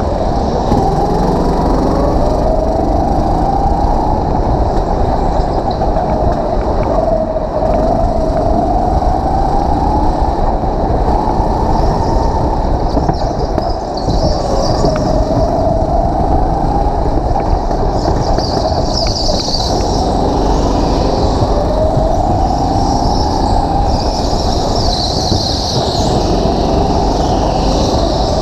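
Go-kart running at speed, heard from the driver's seat: its drone rises and falls in pitch every few seconds over a steady rumble.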